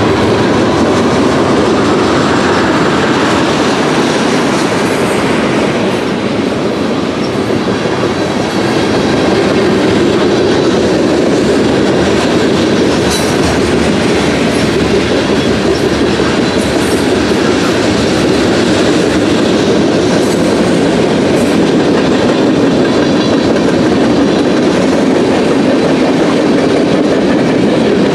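Freight cars of a long mixed freight train (covered hoppers, tank cars, boxcars) rolling past close by: a loud, steady rumble of steel wheels on rail.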